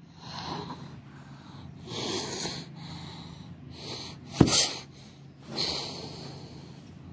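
A frightened person breathing heavily in loud, rasping breaths about every one and a half to two seconds, with one sharp knock about four and a half seconds in.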